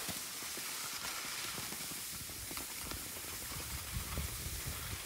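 Skis sliding over packed snow, a steady hiss with a few soft low knocks about four seconds in.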